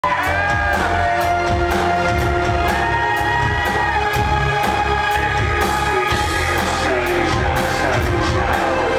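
Industrial band playing live through a loud PA: a fast, steady electronic beat over heavy bass, with sliding pitched synth lines above.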